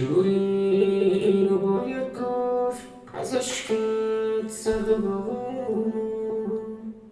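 Sung pop vocal line played back through the Antares Harmony Engine, with a generated harmony voice added. The harmony voice is set a third above, and is switched to a fifth above partway through.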